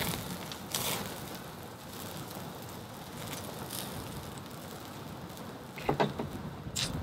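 Charcoal fire crackling and steak fat sizzling on a small tabletop charcoal grill, with scattered sharp pops as fat drips onto the coals and flares up. A louder clatter about six seconds in.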